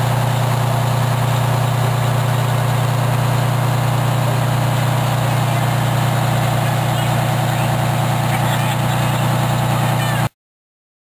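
Detroit Diesel 12V-71, a two-stroke V12 diesel in a 1974 Kenworth, idling steadily with a deep even note, until the recording cuts off abruptly near the end.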